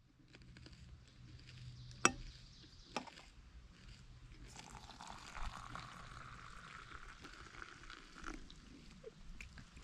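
Liquid being poured for about four seconds, starting about halfway through, after two sharp clicks and over a faint low hum.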